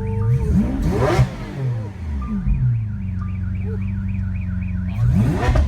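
Lamborghini Aventador SV's V12 idling, then revved in two quick blips that rise and fall sharply, about a second in and near the end. Under the idle a fast, repeating high chirp sounds, like a car alarm.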